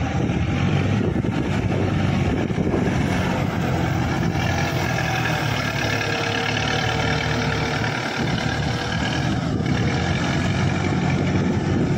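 The Cummins diesel engine of a 10-ton forklift running steadily as the machine drives and turns.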